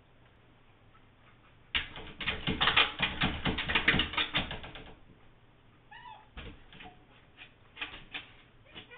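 Two dogs, a husky and a tan dog, pawing and scratching at a glass-paned door: a rapid clatter of claws on the glass and door for about three seconds, then a brief whine and a few scattered taps.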